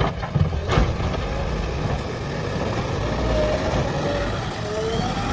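Heavy diesel engine running steadily, with three sharp knocks in the first second.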